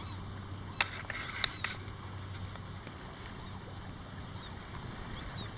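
Steady outdoor background of wind and water around a wading angler playing a fish, with three sharp clicks close together about a second in.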